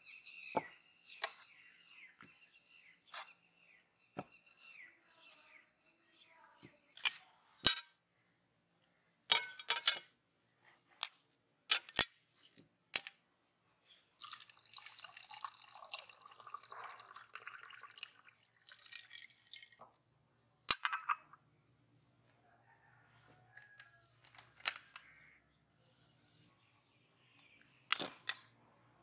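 A cricket chirping in a fast, even pulse at one high pitch, stopping a couple of seconds before the end. Sharp clinks of crockery and cutlery set down on the table come every few seconds, with one of the loudest about a second before the end.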